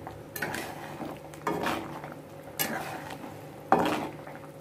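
A spatula stirring watery hog plum chutney as it boils in a metal wok, scraping and knocking against the pan four times about a second apart. The last knock, near the end, is the loudest.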